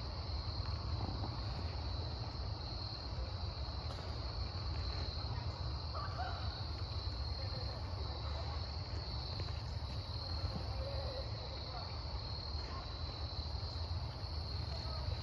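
Insects trilling in an unbroken high-pitched drone, over a steady low rumble.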